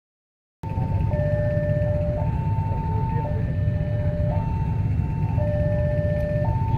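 Electronic level-crossing warning alarm sounding a two-tone signal, alternating a higher and a lower tone about once a second, over a steady low rumble. It starts after a brief silence.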